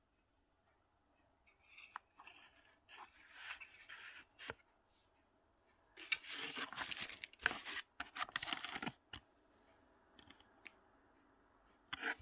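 Packaging being handled: a plastic battery charger and its foam insert rubbed and shifted, giving bursts of scraping and rustling with a few sharp clicks, busiest from about six to nine seconds in.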